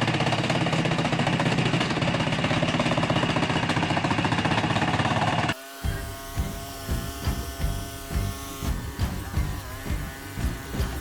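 A chainsaw running with a steady, dense buzz for about five and a half seconds, cut off abruptly. Background music with a steady beat follows.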